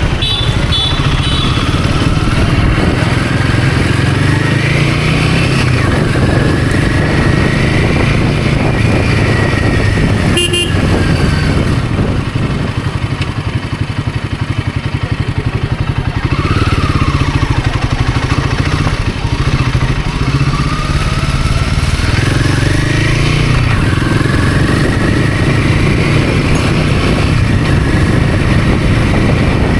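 Royal Enfield Himalayan 450's 452 cc single-cylinder engine under way, its revs climbing and dropping again several times as it pulls through the gears. It goes quieter for a few seconds around the middle as the throttle is eased, then picks up again.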